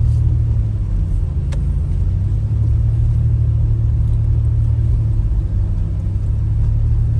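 Car driving, a steady low rumble of engine and road noise, with a single faint click about a second and a half in.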